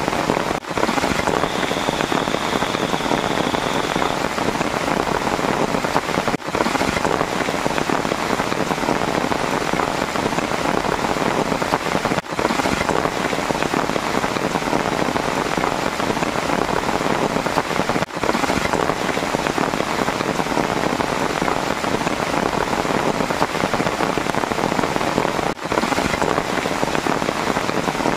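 Heavy rain falling steadily, a dense even hiss with brief dips about every six seconds.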